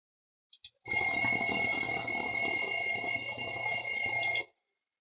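Alarm clock ringing loudly and steadily for about three and a half seconds, then cutting off suddenly, with two faint clicks just before it starts.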